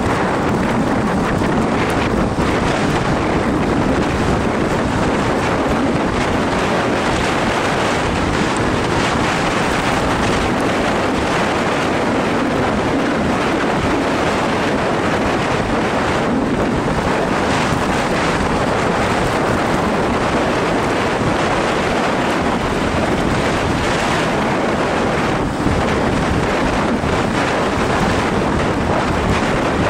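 Steady wind noise buffeting the microphone, a dense rushing with no engine tone in it, from the air stream of a fast downhill descent on a mountain road.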